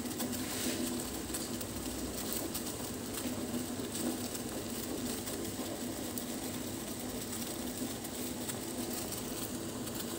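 A root decoction at a rolling boil in a stainless steel pot: steady bubbling with many small pops.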